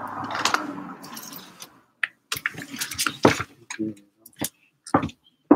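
Rustling handling noise for the first couple of seconds, then a string of separate sharp knocks and clicks, irregularly spaced, as someone moves about the room handling things.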